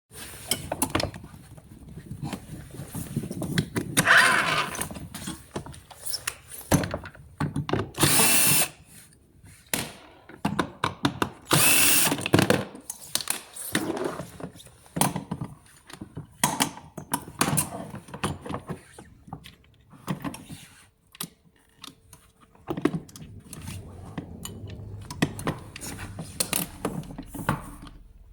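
A power tool runs in several short bursts of a second or less, about 4, 8 and 12 seconds in. Between the bursts come many clicks and knocks of metal parts being handled, as in a shaft-axle replacement.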